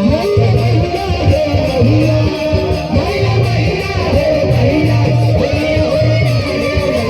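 Pop music led by guitar, with a bass line and short melodic phrases.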